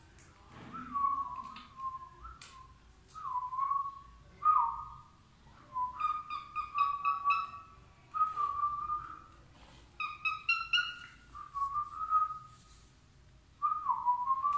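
Grey cockatiel whistling a string of short phrases with sliding notes, the same few notes repeated with short pauses between them.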